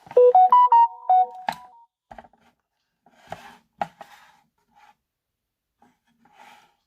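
A short electronic tune of quick beeping notes, stepping up and down in pitch for under two seconds. It is followed by a few light clicks and taps, heard sparsely.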